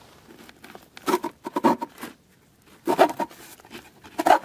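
Wooden sliding lid of a small box scraped open in short, scratchy pushes, wood rubbing on wood. There is a cluster about a second in, a loud stroke around three seconds and another near the end.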